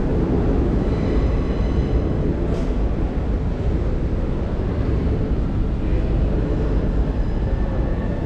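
Steady low rumble of subway station ambience, with no rise or fall.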